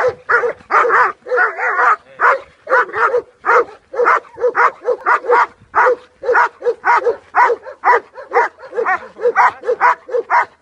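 German Shepherd barking rapidly and without pause, about two barks a second: the aggressive bark of a leashed dog confronting a helper who threatens it with a stick in protection training.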